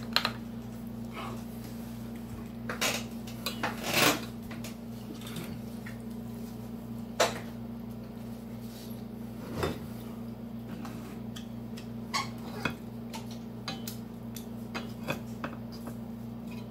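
A fork clinking and scraping against a pan now and then as food is scooped up, a short sharp click every one to three seconds, over a steady low hum.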